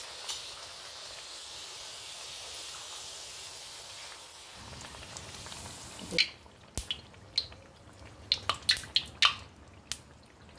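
Hot oil sizzling steadily around a chana dal kachori deep-frying in a kadhai. From about six seconds in, the hiss drops and a string of sharp pops and clicks comes over quieter frying.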